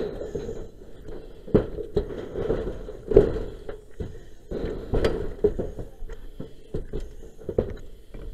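A firefighter's boots and gear knocking and clanking on a metal ladder and corrugated sheet-metal roofing while climbing, in irregular knocks, the loudest about three seconds in and again about five seconds in.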